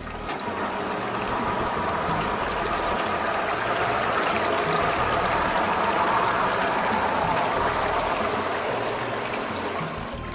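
Rushing, splashing water, swelling to its loudest in the middle and easing off near the end.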